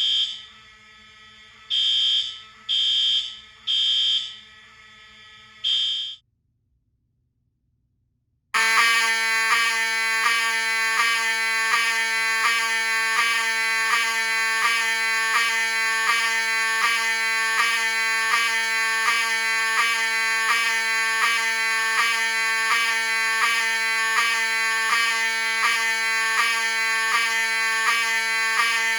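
A Simplex 4305 fire alarm sounds in the temporal-3 evacuation pattern, three short blasts then a pause, and cuts off about six seconds in. After about two seconds of silence, a Wheelock 7002T-24 multitone horn starts sounding a continuous horn tone with a fast, even pulse.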